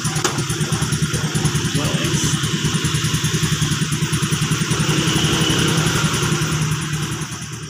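Motorcycle engine idling with a fast, even putter, fading out near the end.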